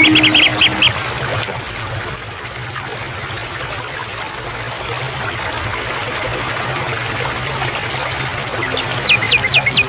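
Water running and trickling steadily, as from a small stream. A bird gives a quick run of high chirps in the first second and again near the end.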